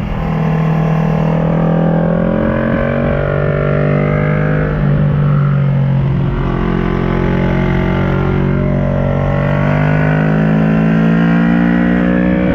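2010 Kawasaki ER6N's parallel-twin engine through an SC Project carbon exhaust, pulling under way. Its note climbs and drops back several times.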